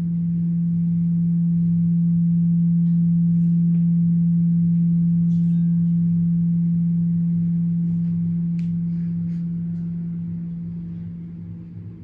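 A steady low hum at one unchanging pitch that swells up and then fades away, with a few faint ticks and short chirps above it.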